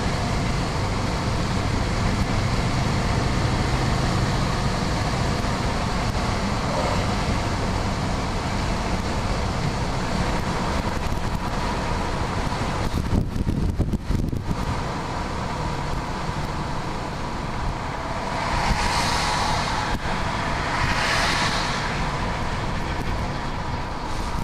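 A car cruising at highway speed: a steady mix of engine drone, tyre roar and wind noise, with two short swells of higher hiss about three-quarters of the way through.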